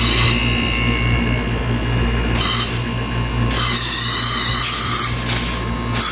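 Newly replaced air-conditioner compressor in the outdoor unit, just switched on and running with a steady low hum. Two bursts of high hissing come about two and a half and four seconds in.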